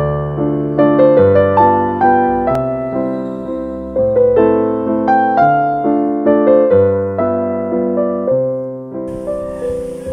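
Background piano music: flowing phrases of single notes over a low note that changes every second or two. A faint hiss joins near the end.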